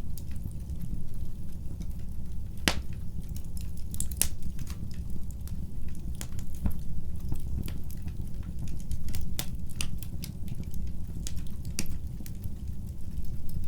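Wood fire burning in a fireplace, a steady low rumble of flames with irregular sharp crackles and pops, two louder pops about three and four seconds in.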